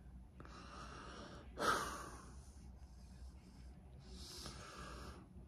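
Person breathing close to the microphone: a soft in-breath, a louder out-breath right after it, and a second in-breath near the end.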